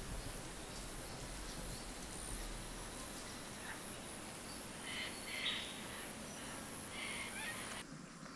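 Outdoor bush ambience: a steady background hiss with a few short bird chirps, clustered about five and seven seconds in. The background changes abruptly near the end.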